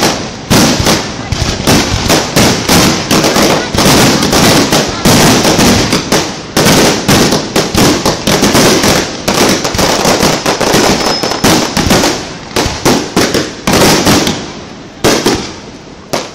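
Aerial firework shells bursting in a rapid, continuous barrage of loud bangs, several a second, thinning out briefly near the end before another bang.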